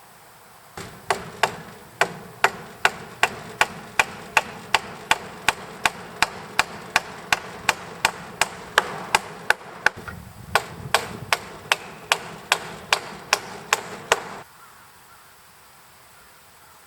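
Steady, rapid hammer blows on wood, about two and a half strikes a second, with a short break about ten seconds in. The blows stop about fourteen seconds in.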